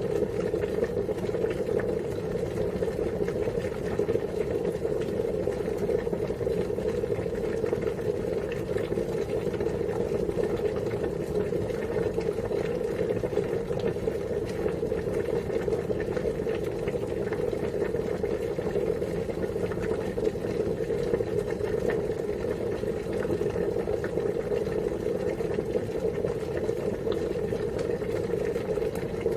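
Water boiling steadily, an even rumbling bubble with a fine crackle that keeps on without a break.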